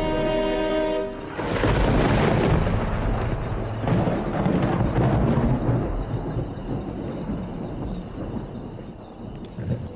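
Music with held chords ends about a second in. Then comes a loud, low rumbling commotion of the elephant herd and the attacking lions, with a few sharper strokes, fading toward the end.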